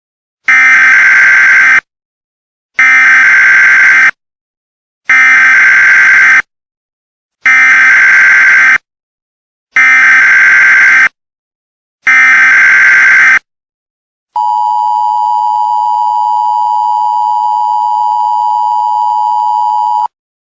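Mock Emergency Alert System tones: six identical screeching digital data bursts of about a second each, evenly spaced. Then the steady two-tone EAS attention signal sounds for about six seconds and cuts off abruptly.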